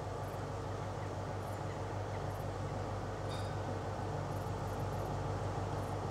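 Class 43 HST power car's diesel engine running steadily as the InterCity 125 approaches at low speed, a low hum that grows gradually louder.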